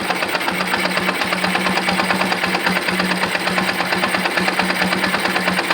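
Yamaha FZ16's single-cylinder carburetted engine idling steadily with a fast, even beat. The idle is being set with a homemade air screw added to the carburettor to lean out a rich fuel mixture.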